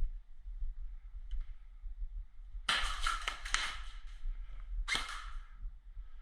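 Airsoft gun firing a rapid burst of shots about two and a half seconds in, and a second short burst about five seconds in.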